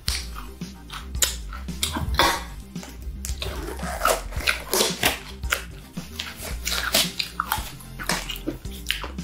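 Disposable plastic glove crinkling and rustling as it is peeled off the hands and handled, a string of irregular crackles.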